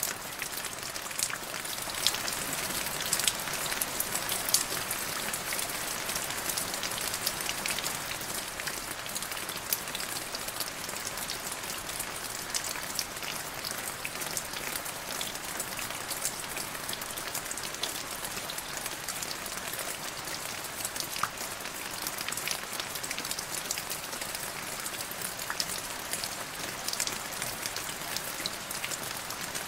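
Steady rain falling on a puddle and leaves, with many separate drops splashing close by, a little heavier in the first few seconds.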